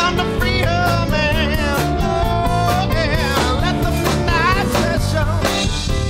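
Blues-rock band music with electric guitars, bass and drums at a steady, full level, carrying a wavering lead melody line.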